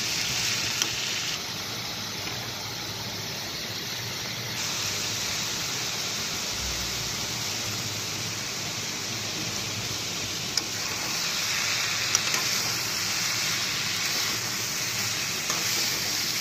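Grated carrot, beetroot and onion sizzling in oil in a pan while being stirred with a spatula, with a few clicks of the spatula against the pan.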